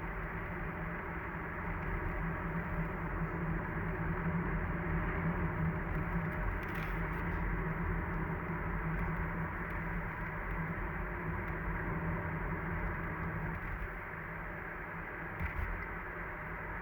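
Mazda CX-30 XD's 1.8-litre diesel running on the move: steady running noise with a low droning tone that eases about 14 seconds in. This is the kind of recorder-like whistle or long-pipe vibration the owner reports from the engine bay above 40 km/h, a fault that persists after many part replacements.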